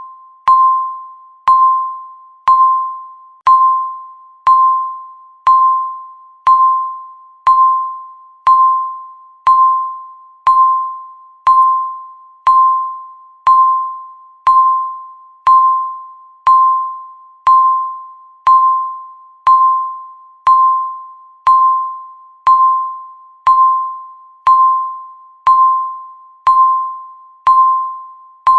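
Countdown timer beeping once a second: a short tone near 1 kHz that starts sharply and fades before the next beep, marking each second that passes.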